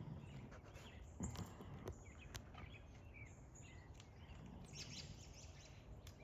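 Faint outdoor background with scattered short bird chirps and a couple of soft clicks.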